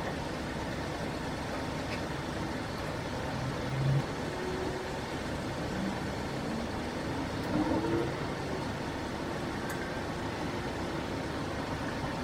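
Steady vehicle running noise, with engine and road sound under an even hiss. A brief rising tone comes about two-thirds of the way through.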